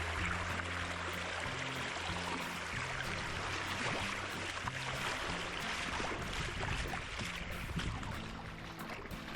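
Rush of running water, with background music whose low notes change in slow steps underneath. The sound fades a little near the end.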